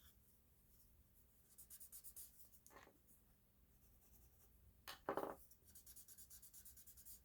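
Faint scratching of drawing strokes on paper as the lips of a doll sketch are drawn in, in short strokes with a denser run near the end. About five seconds in comes one brief louder sound.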